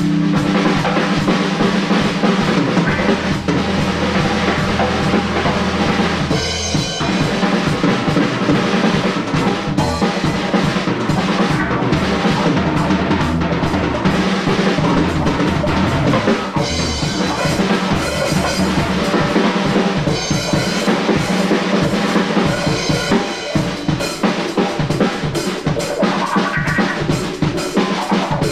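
Live rock band playing an instrumental passage with no vocals: the drum kit's kick and snare hits are the loudest part, over electric guitar and bass guitar.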